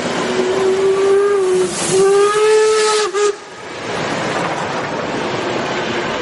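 Train whistle blowing twice in quick succession, two steady single-note blasts of about a second and a half each. The rumble and clatter of the moving train runs underneath and carries on after the whistle stops.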